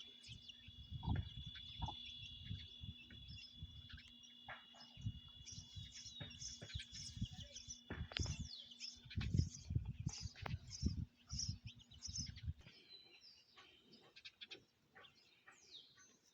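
Birds chirping and singing, with several short high chirps and a steady high tone through the first half. Low rumbling thumps run underneath and stop sharply about three quarters of the way through.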